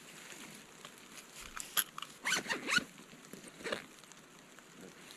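A camera backpack's zipper pulled open in several short rasps, about two seconds in and again a little later, as the camera gear is taken out.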